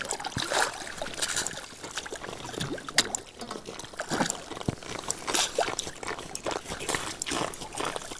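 Irregular crunching, dripping and splashing of slush and ice water at an ice-fishing hole as an angler works a hooked walleye up through it, with many sharp crackles and clicks.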